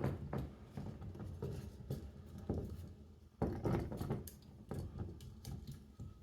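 Light clicks, taps and scrapes of a golf iron being handled and set in a loft-and-lie machine, with a louder knock about three and a half seconds in and another a little over a second later.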